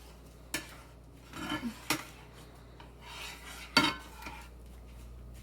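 A utensil stirring scrambled eggs in a frying pan, scraping across the pan with a few sharp clinks against it, about half a second, two seconds and nearly four seconds in.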